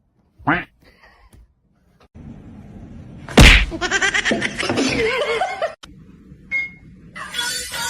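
A loud sudden smack, followed by people's voices for a couple of seconds.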